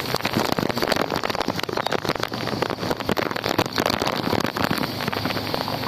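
Strong wind with rain: a dense, irregular crackling patter.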